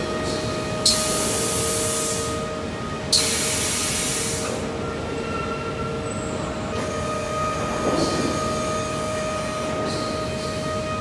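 Timber conveyor line machinery running with a steady hum and several held tones. Two loud bursts of hiss, each opening with a click and lasting about a second and a half, come about one and three seconds in.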